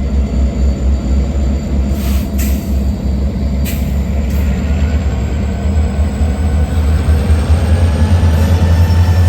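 EMD GP38 diesel locomotive's non-turbocharged 16-cylinder two-stroke engine running with a steady low drone that gets louder near the end. A few short, sharp high-pitched sounds come between about two and four seconds in.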